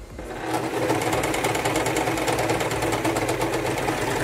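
Singer 14SH700 serger starting up just after the beginning and then running at a steady speed with a fast, even rhythm, sewing a narrow three-thread overlock on the right needle as fabric feeds through.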